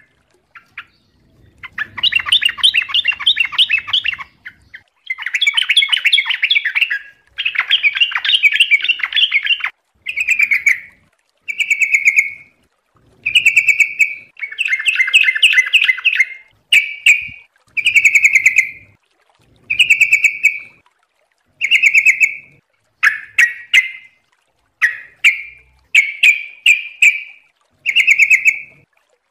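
Yellow-vented bulbul (trucuk) singing: long, dense bubbling chatter for the first ten seconds or so, then a run of short, loud whistled phrases, one about every two seconds.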